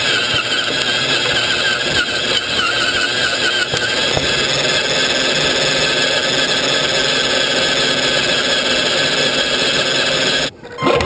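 Electric motor and gear drivetrain of an RC scale Land Rover Defender 90 crawler whining steadily with a slightly wavering pitch, heard from inside the model's body. It cuts off abruptly near the end.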